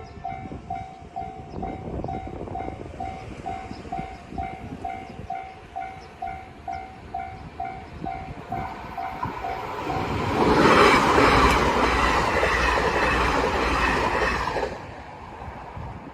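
Japanese railroad crossing warning bell dinging in a quick, steady rhythm. About ten seconds in, an electric train passes through the crossing: a loud rush of wheel and running noise holds for about four seconds, then falls away.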